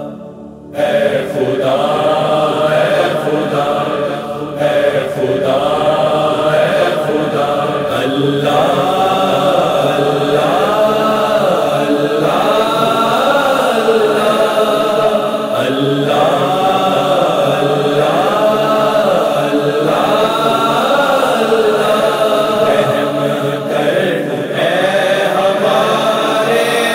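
A chorus of voices chanting a slow, wordless devotional melody, one phrase repeating about every two seconds, starting just under a second in; this is the intro backing of a hamd.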